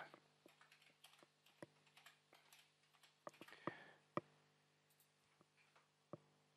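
Faint typing on a computer keyboard: a run of light key clicks for about four seconds, then a few isolated clicks, over a faint steady hum.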